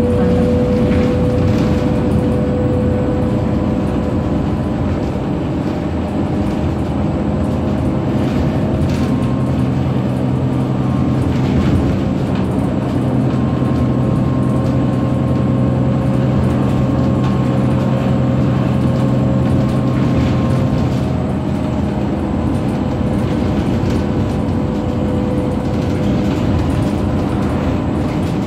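Cabin sound of a 2007 New Flyer D60LFR articulated diesel bus under way: its Cummins ISM diesel engine and Allison automatic transmission running steadily, with road noise.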